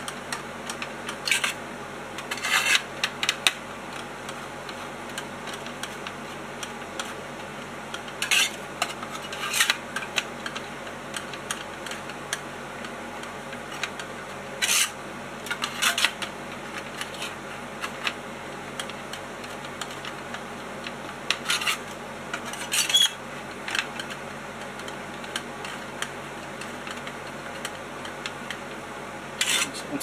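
Scattered metallic clicks and short scrapes of a long-shafted driver turning the heatsink screws down onto a new Xeon CPU in a Mac Pro processor tray. A steady faint hum runs under it.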